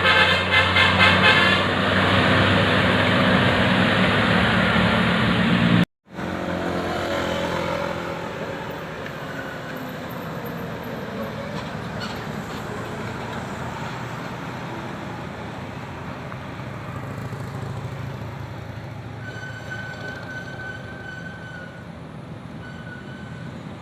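Tour bus with a melodic multi-tone telolet horn: the horn tune ends right at the start, then the bus engine runs loudly as it passes. After a sudden cut, quieter road traffic noise follows, with a high horn tone sounding twice briefly near the end.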